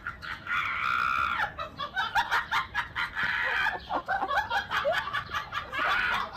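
A bird calling: rapid short notes broken by three longer harsh calls.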